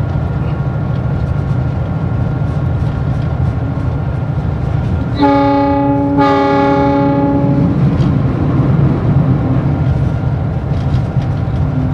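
CC 206 diesel-electric locomotive running, heard from inside its cab as a steady low rumble. About five seconds in, its horn sounds twice: a short blast, then a longer one of about a second and a half.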